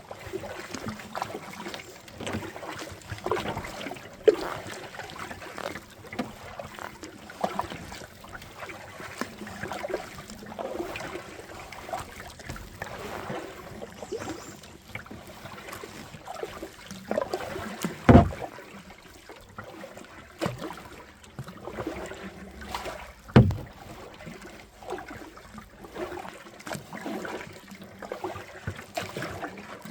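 Kayak on a river: water splashing and trickling around the hull and paddle in irregular small strokes, with two sharper, louder knocks, about 18 and 23 seconds in.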